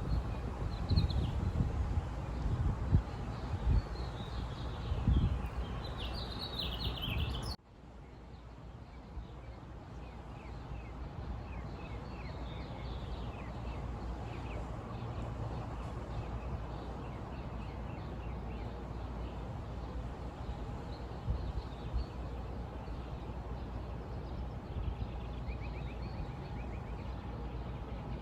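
Outdoor ambience with small birds chirping over irregular low rumbling. About a quarter of the way in it cuts off suddenly to a quieter, steady ambience with only faint, scattered bird chirps.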